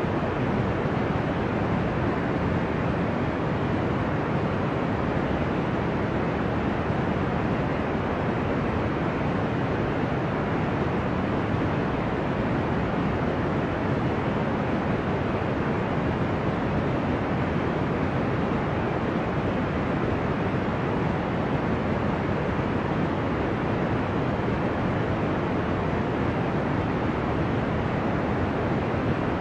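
Deep white noise with an ocean-like rush: a constant low hiss with its weight in the low and middle range, steady in level with no rise and fall of individual waves.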